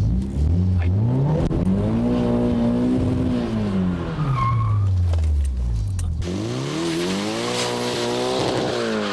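Nissan S14 Silvia's engine revving up, holding and dropping back twice as it slides around a pylon, with tyres squealing and skidding; heard first from inside the cabin, then from outside the car. Countersteer comes late and the throttle is not matched, which the instructor calls the most common beginner pattern.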